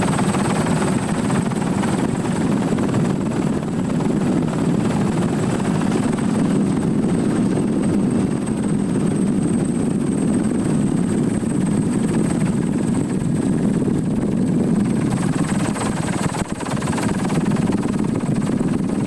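Steady engine drone with a thin high whine above it.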